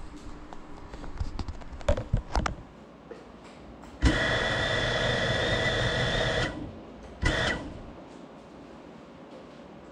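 Small FPV quadcopter knocking and clattering as it comes down. About four seconds in, its motors give a steady whine for about two and a half seconds, then a short burst a second later, while the drone sits still on the floor.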